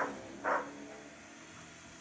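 A dog barks twice, about half a second apart, over the steady hum of a corded electric snow thrower.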